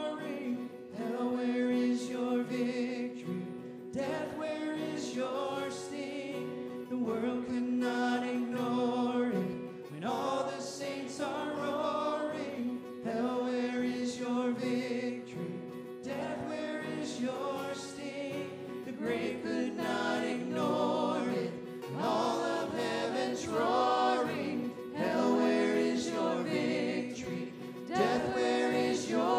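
Live worship music: men and a woman singing a congregational song in sustained phrases, accompanied by acoustic guitar.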